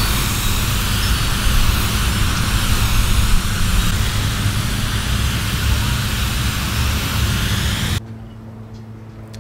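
Steady hiss of water spraying from a garden hose nozzle over a lawn. It cuts off suddenly near the end, leaving a quiet background with a faint low hum.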